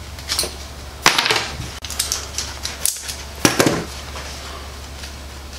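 Metal sling hardware clicking and rattling as it is worked off nylon webbing by hand, in several short clattering bursts, over a steady low hum.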